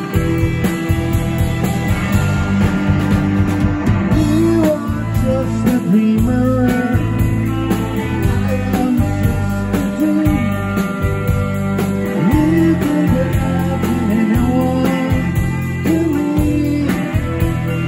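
Live rock band playing at full volume: electric guitar with bending notes over bass and drums.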